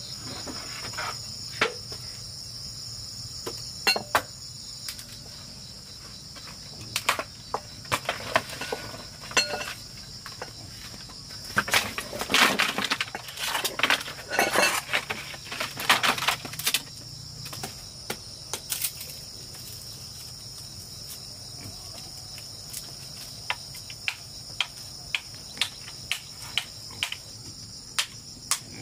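A steady high drone of insects, with irregular knocks and clatters over it. The clatter comes thickest about midway, and a run of evenly spaced taps, a little under two a second, follows near the end.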